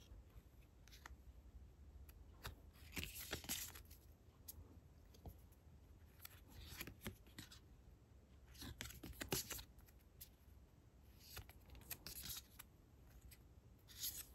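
Faint, intermittent rustle and slide of matte photocards rubbing against one another as a stack is flipped through by hand, one card moved to the back every couple of seconds.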